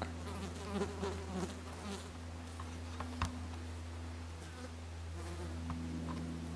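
Flying insects buzzing close to the microphone, a steady hum that wavers in pitch, with a faint click about three seconds in.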